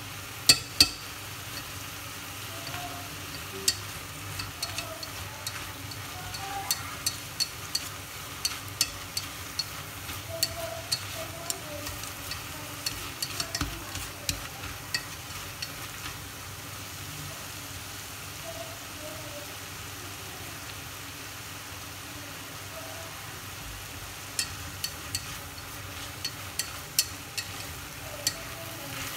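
Beef and Tonkin jasmine flowers sizzling over high heat in a stainless steel pot while wooden chopsticks toss them, clicking and scraping against the metal sides. The taps come in runs, with a spell of plain sizzling a little past the middle, and the sharpest clicks come just after the start.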